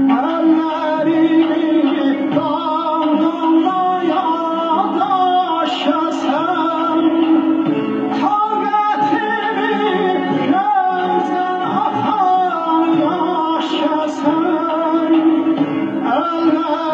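Male Azerbaijani singer (xanəndə) singing a wavering, ornamented vocal line over instrumental accompaniment with a steady low held note.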